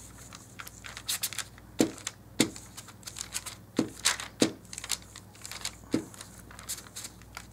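Large glue stick rubbed across paper in strokes, with paper crinkling and about five short soft knocks.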